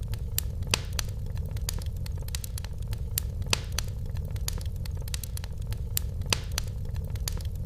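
Fireplace fire crackling: irregular sharp pops and snaps, a few louder ones, over a steady low rumble.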